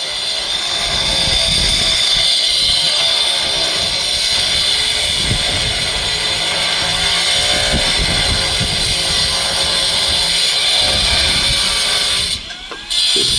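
Power tool cutting marble stone, running loud and steady with a high hiss and a wavering whine, then cutting out near the end.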